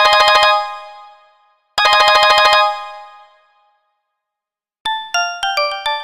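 LG KS10 mobile phone ringtones: a fast trilling electronic ring that sounds twice, each burst about a second long and dying away. After a pause of about two seconds, a different ringtone starts near the end, a tune of quick single notes.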